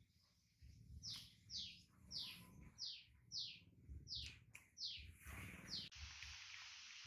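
A small bird chirping faintly, a run of about nine short high notes that each slide downward, roughly two a second. About six seconds in a steady hiss starts suddenly.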